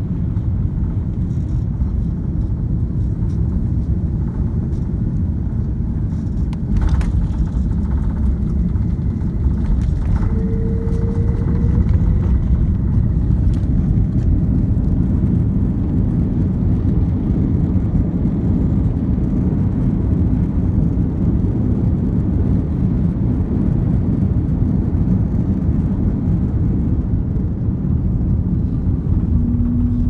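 Cabin noise of an Airbus A330-300 landing: a steady low rumble of engines and airflow, then a sudden jolt and step up in noise about seven seconds in as the wheels touch down. A heavier rollout rumble follows, with the ground spoilers raised.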